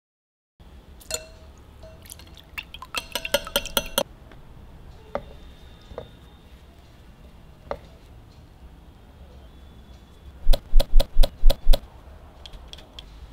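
Glass dishes and kitchen utensils clinking: a few scattered clinks, a quick cluster of clinks a few seconds in, then about seven sharp, loud taps in quick succession near the end.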